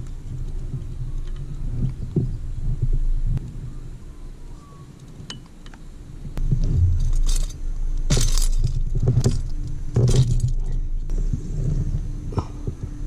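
Handling noise from a large fish and fishing gear on a kayak: scattered knocks, rustles and light metallic clinks, with a few louder rustling bursts in the second half.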